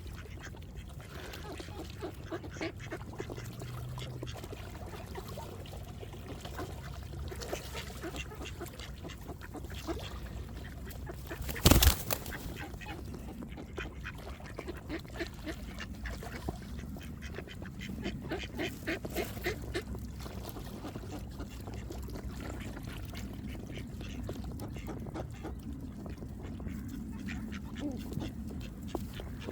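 A flock of ducks calling and quacking continuously as they crowd in to be fed, many short calls overlapping. A single sharp knock cuts through about 12 seconds in, the loudest sound here.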